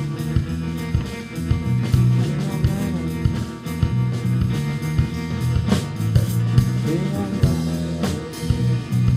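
Live rock band playing a song: electric guitars and drum kit over a repeating low bass line.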